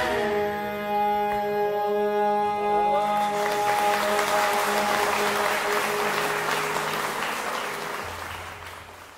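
A qawwali song ends on a held harmonium chord after the tabla stops. From about three seconds in, audience applause and cheering swell, then fade out near the end.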